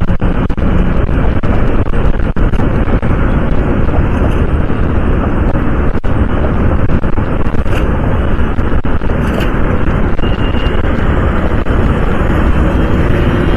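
Steady wind rush on the microphone of a moving Honda CD 110 motorcycle, with the bike's engine and road noise underneath.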